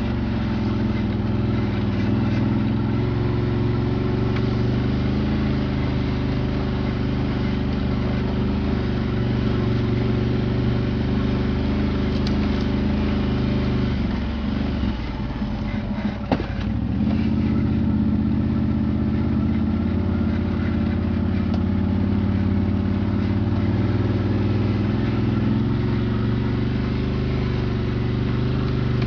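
Quad bike (ATV) engine running at steady revs, dipping briefly about halfway through with a single sharp knock, then picking up again.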